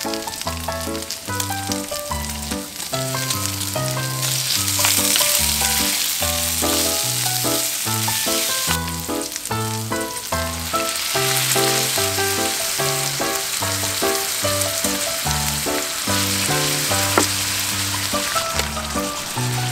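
Pork belly sizzling in a hot frying pan over a gas camp stove, the sizzle growing louder about four seconds in and again about ten seconds in as minced garlic and then soy sauce go into the hot fat. Background music with a bass line plays underneath.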